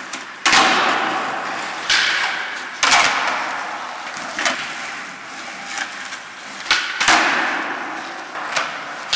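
Skateboards on a concrete floor: about seven sharp cracks of boards being popped and landing on flatground tricks, with wheels rolling on the concrete between them. Each crack echoes in the bare concrete parking garage.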